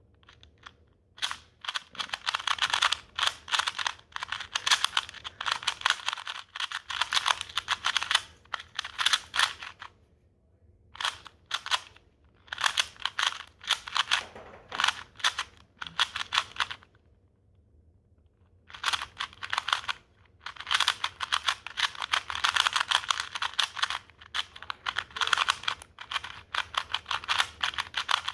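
A new KungFu 2x2 speed cube being turned rapidly by hand: bursts of quick plastic clicking and rattling, broken by short gaps and two longer pauses. The turning sounds scratchy because the cube is still breaking in.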